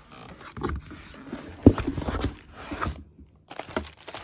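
Plastic bags of aluminium jump rings and pliers being handled and shifted about in a cardboard box: rustling and scraping with irregular knocks, the sharpest about one and a half seconds in.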